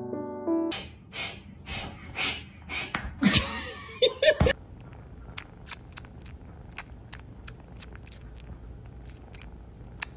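Piano music ends half a second in, followed by a run of loud, rough bursts about twice a second. From about halfway, a kitten licking and suckling at a person's face makes small sharp wet clicks, about three a second.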